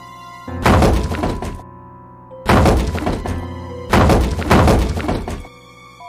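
Dishes and cookware clattering and crashing in three loud bursts, each about a second long and made of many quick knocks, over steady cartoon background music.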